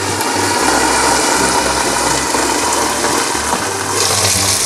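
Sweet potato chunks deep-frying in oil under a glass lid in a frying pan, a steady sizzle. About four seconds in the lid is lifted and the sizzle turns brighter and more open.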